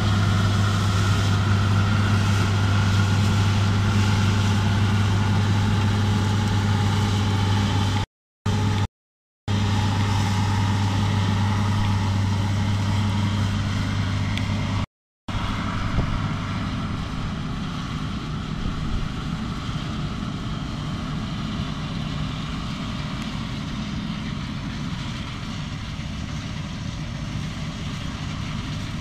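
Bizon BS Z110 combine harvester running steadily while harvesting rapeseed, its diesel engine giving a strong, even hum. The sound cuts out briefly three times, and after the last break, about halfway through, the machine is fainter and the deep hum gives way to a more even rushing noise.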